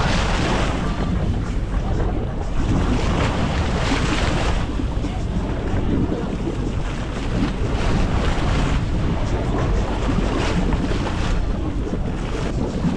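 Wind buffeting the microphone over the steady low drone of a sportfishing boat's engine and the rush of sea water along the hull, swelling and easing in gusts.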